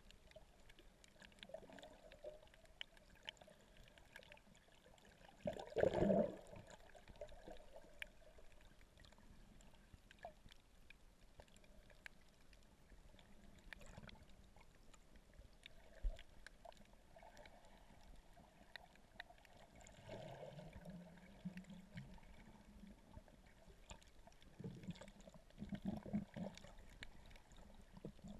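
Muffled water movement heard underwater: a faint steady hiss with scattered small clicks, and a few louder bursts of water noise, the loudest about six seconds in and several more near the end.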